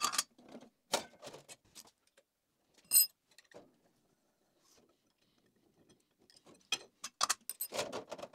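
Metal handling noises as the blade is taken off a DoAll vertical bandsaw: scattered clicks and knocks of the cover and the steel blade against the frame, one sharp ringing metallic clink about three seconds in, and a quick run of clicks and rattles near the end as the blade is pulled free.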